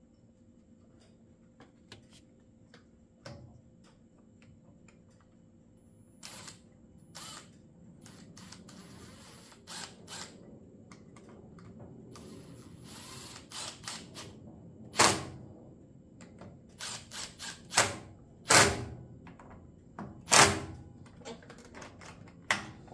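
Cordless drill-driver run in short bursts, driving screws into a chainsaw's housing. Light clicks of handled parts and tools come first, and the loudest bursts fall in the second half.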